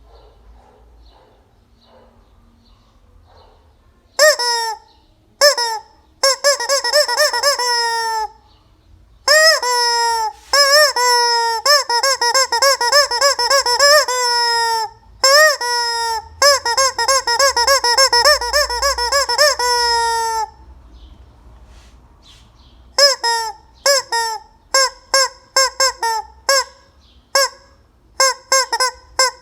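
Rubber squeeze-toy chicken squawking, a loud honking squeal with a rise and fall in pitch each time it is squeezed. It comes in several long runs of rapid squeezes from about four seconds in, then after a short pause as a string of quick separate squawks.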